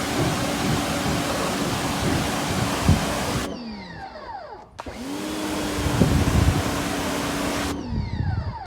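Electric pressure washer spraying in two bursts: motor whine under the hiss of the water jet. The spray stops about three and a half seconds in and again near the end, and each time the motor's pitch falls as it spins down.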